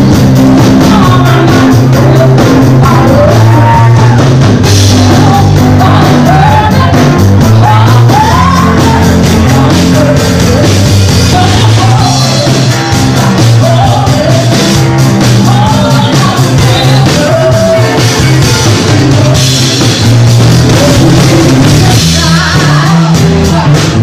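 A live rock band playing loudly, with a drum kit, bass and guitar, and a woman singing the melody over them.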